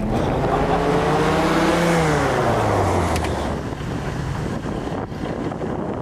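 An engine passing by: its pitch climbs over the first two seconds, then drops, and it fades into a steady rush of noise.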